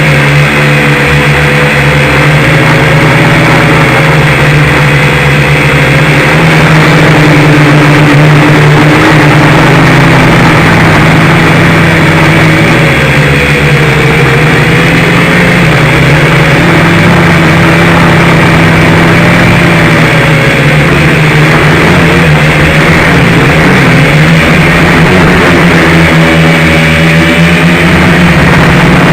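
Dromida Ominus FPV quadcopter's motors and propellers buzzing steadily, the pitch wavering up and down as the throttle shifts, over heavy wind rumble on the microphone.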